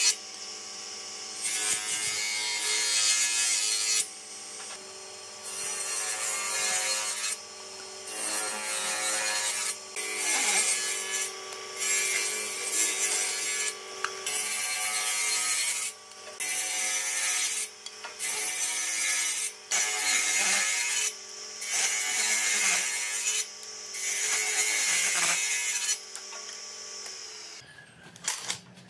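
Table saw running, its blade cutting notches into small wooden strips in a dozen or so passes: each cut a loud rasping burst of a second or two, with the saw's steady running hum between passes. The sawing stops shortly before the end.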